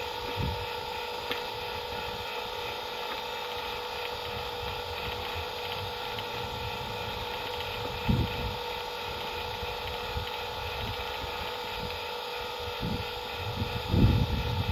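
A steady electrical-sounding hum holding two even tones. A low rumbling buffet comes about eight seconds in and more buffets come near the end, like wind on the microphone.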